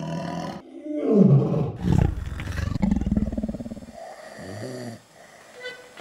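A man's loud, rattling snoring: a deep rasping breath that falls in pitch about a second in, more rasping, and a shorter low groan-like snore about four seconds in.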